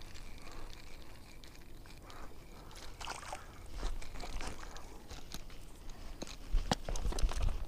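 Water sloshing and lapping, with scattered small clicks and scrapes and a few low thumps near the end.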